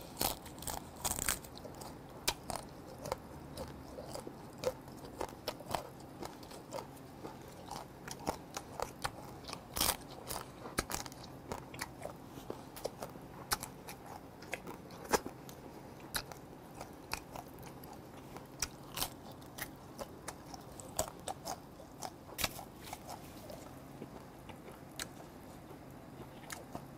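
A person eating steamed gazami (blue) crab: irregular crunches and wet chewing clicks as the meat is bitten and pulled from the shell.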